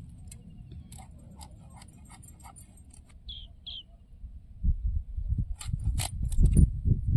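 Shol fish being scaled and cut against an upright bonti blade: scattered sharp scraping clicks. A bird chirps twice just past three seconds in. From about four and a half seconds, a low rumble in gusts becomes the loudest sound.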